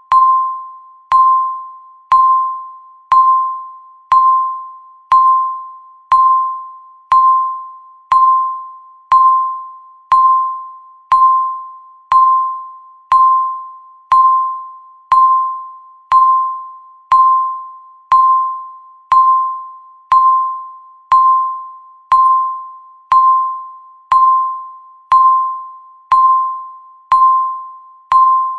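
Countdown timer beeps: one clean electronic beep every second, each sharp at the start and fading out before the next.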